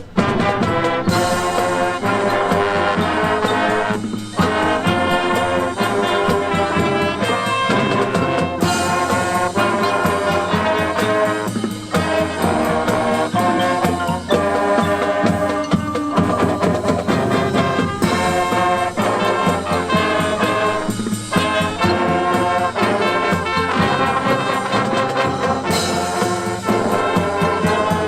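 High-school marching band playing its halftime show: the brass section carries held chords over the drumline's steady beat.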